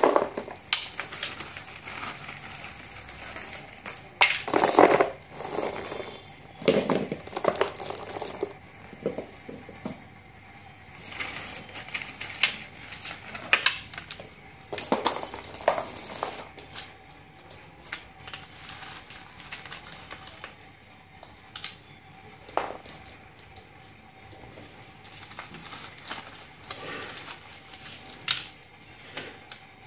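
Irregular crinkling and clicking as slate pencil sticks and a crinkled aluminium foil tray are handled, with the loudest bursts about four to five seconds in.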